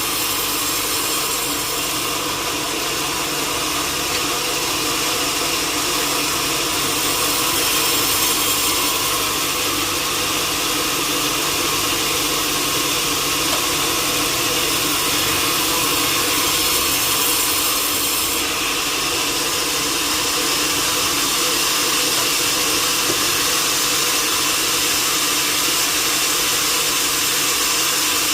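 Sawmill machinery running steadily: a saw working on wood, a loud, even noise with a steady hum underneath.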